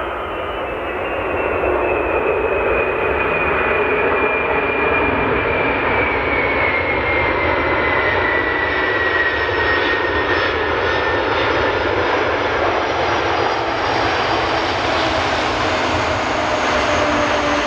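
Boeing 747's four jet engines running at high power: a loud, steady roar with a high whine that slowly falls in pitch, swelling about a second and a half in.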